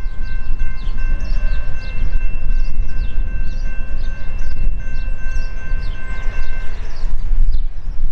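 Distant freight locomotive's multi-note air horn, Norfolk Southern GE AC44C6M, sounding one long blast of several notes held together that cuts off about seven seconds in, over a steady low rumble.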